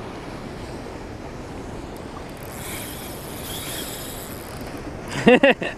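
Steady rush of turbulent spillway water churning below the dam outlets, with wind buffeting the microphone. Near the end a short voiced exclamation cuts in.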